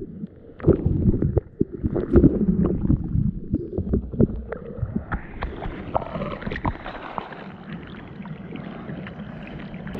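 Water splashing and sloshing around a bodyboarder paddling through the surf, heard from a camera held in the rider's mouth at water level. Dull, gurgling knocks and splashes at first, then a steadier wash of water from about halfway through.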